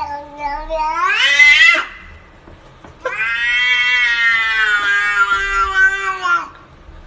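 A tabby-and-white cat meowing loudly in two long, drawn-out calls. The first rises in pitch and breaks off about two seconds in; the second is held for about three seconds and sags in pitch at the end.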